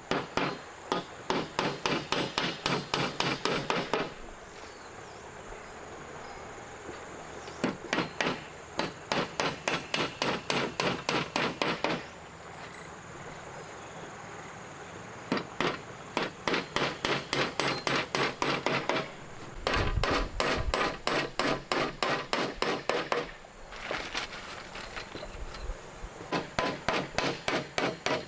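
Rapid rhythmic knocking, hard strikes about four or five a second, in bursts of three to four seconds separated by short pauses.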